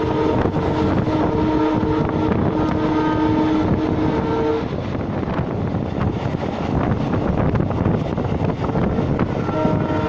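WDP-4D diesel locomotive's multi-tone air horn sounding a long blast, heard from a coach of the moving train over the steady rumble of the wheels on the rails. The horn cuts off about four and a half seconds in and starts sounding again near the end.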